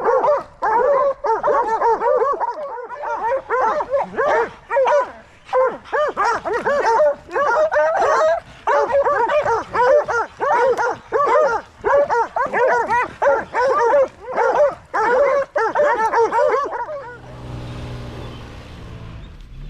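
A pack of hunting hounds baying together, many voices overlapping. The baying stops about seventeen seconds in, leaving a low steady rumble.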